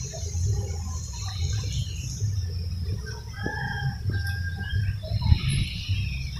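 Chickens clucking, with a rooster crow about three and a half seconds in, over a steady high hiss.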